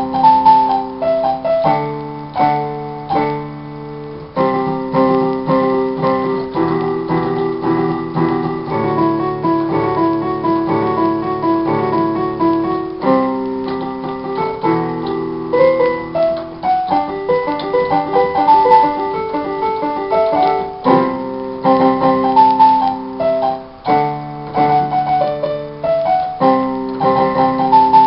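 Portable electronic keyboard played solo on a piano voice, held left-hand chords under a right-hand melody, at a brisk tempo.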